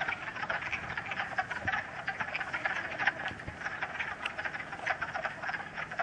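Chorus of many wood frogs calling at once: a steady din of short, overlapping, duck-like clucks. It is the males' early-spring breeding chorus.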